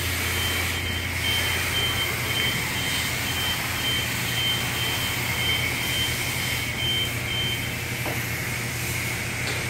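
Self-serve car wash pressure wand spraying water in a steady hiss, with the pump's low hum underneath. A thin high beeping tone runs along with it and stops about eight seconds in.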